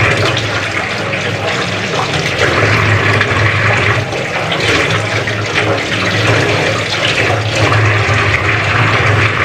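Kitchen tap running steadily, the water splashing into the sink and over hands rubbing and washing fish under the stream.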